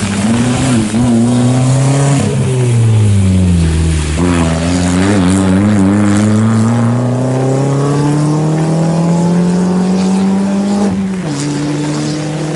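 Ford Fiesta rally car's engine dropping in pitch as it slows into a corner, then accelerating out with a long steady rise in pitch and a sudden drop from an upshift near the end.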